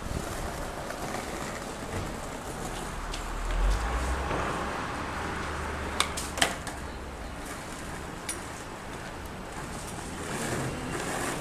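Outdoor city-street background noise, with a low rumble that swells and fades about three to four seconds in, typical of a passing vehicle, and two sharp clicks about six seconds in.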